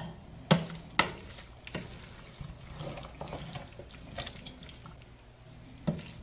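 Spoon stirring through a pot of wet, cooked jambalaya rice, knocking sharply against the side of the pot about five times, with soft wet churning sounds in between.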